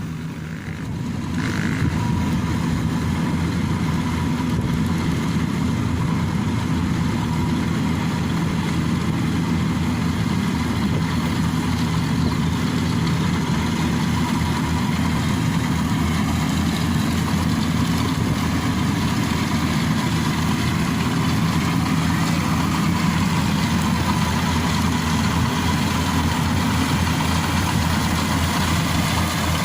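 Yanmar AW70V combine harvester running steadily, a constant diesel engine drone with a thin, even whine above it.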